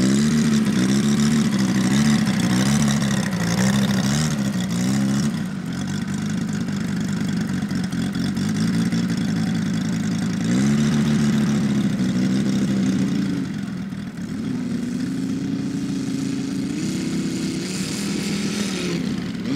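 Engine of a large-scale radio-controlled Yak-11 model aircraft running hard in flight, its propeller note wavering up and down in pitch. The pitch climbs about halfway through and again near the end.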